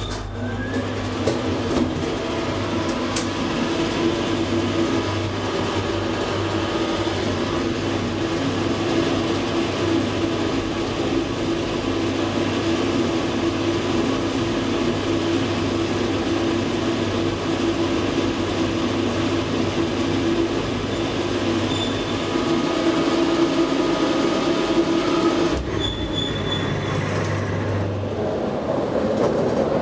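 1974 KONE traction elevator car travelling in its shaft with a steady running hum, coming to a stop about 25 seconds in. Near the end the car doors slide open.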